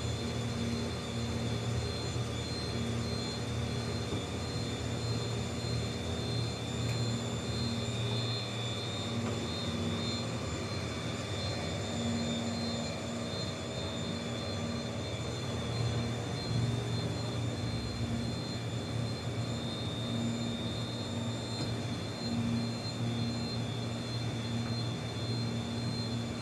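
Rubber two-roll mixing mill running: a steady machinery drone with a low hum and a high whine, from the mill's motor and drive turning the rollers as they work a sheet of rubber compound.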